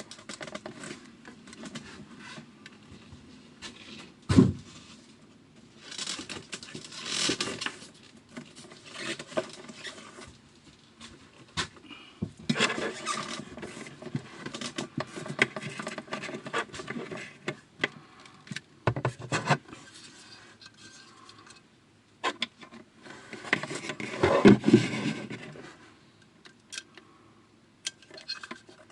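Irregular rustling, scraping and clicking of hands and objects being handled, with a sharp knock about four seconds in and a louder stretch of rustling near the end.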